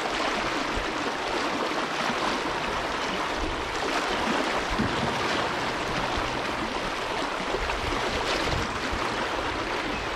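River current rushing over a shallow riffle, a steady even rush of water with a low rumble joining about three and a half seconds in.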